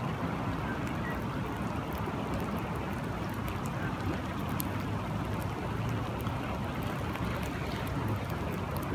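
Steady rushing of flowing river water and rain, with faint scattered ticks of drops.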